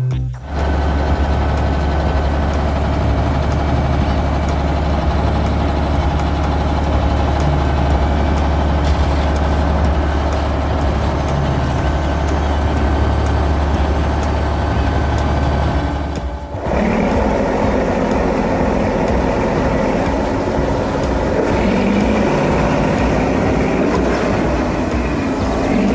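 Heavy vehicle engine sound effects: a steady low engine drone that cuts out about sixteen seconds in and gives way to a different running-engine sound with higher tones.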